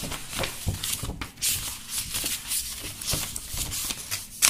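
Paper pages of a textbook rustling and flipping as the book is leafed through by hand, with a string of soft clicks and a sharper flick near the end.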